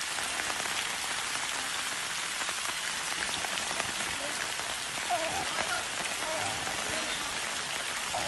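A steady, dense hiss of water.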